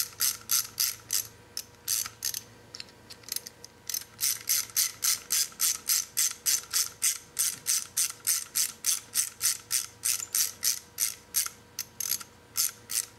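Ratchet wrench clicking rapidly and evenly, about five clicks a second, with a couple of short pauses, as it runs the brake pad pins into a motorcycle rear brake caliper.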